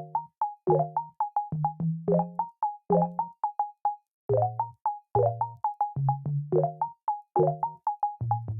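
Background music: a light synthesizer or keyboard tune of short plucked notes over a bass line, with a bouncy repeating rhythm.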